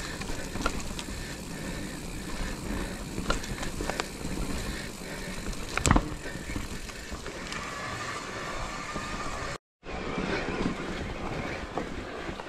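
Electric mountain bike rolling over a leaf-covered dirt trail: steady tyre and riding noise with scattered rattles and clicks, and a sharp knock about six seconds in, the loudest moment. The sound drops out completely for a split second shortly before the end.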